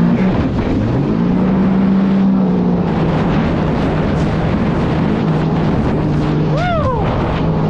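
Sea-Doo jet ski engine running, its pitch rising about a second in and then holding steady, under a continuous rush of wind and water. A short high swooping sound rises and falls near the end.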